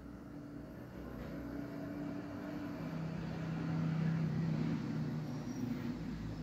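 A vehicle's engine hum that grows louder, is loudest about four seconds in, then eases off again.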